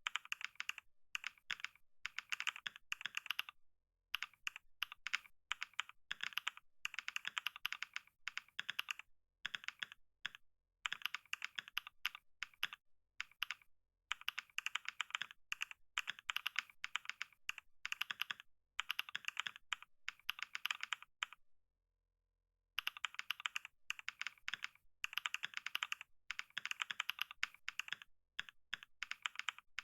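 Computer keyboard being typed on fast and continuously during a typing speed test, rapid keystroke clicks in runs broken by short pauses, with a silent gap of about a second two-thirds of the way through.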